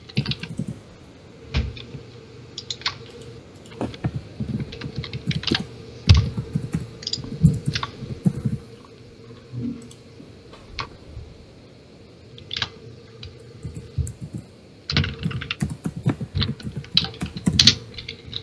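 Typing on a computer keyboard: runs of quick key clicks broken by short pauses, over a faint steady hum.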